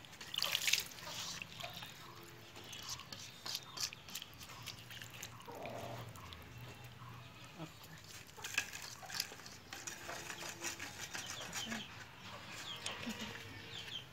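A hand squishing and sloshing raw snakehead fish through spice paste and water in an iron karai, with wet splashes and small clicks against the pan. Short animal calls sound now and then in the background.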